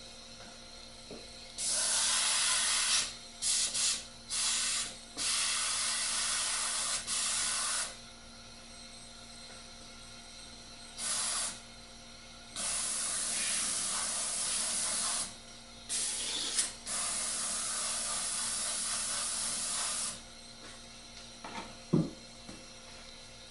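Airbrush with a homemade screen-covered nozzle cap spraying paint for a speckled granite effect, run at 60 psi: about ten bursts of hiss, from a fraction of a second to about three seconds long, as the trigger is pressed and let go. A faint steady hum runs underneath, and there is a single sharp click near the end.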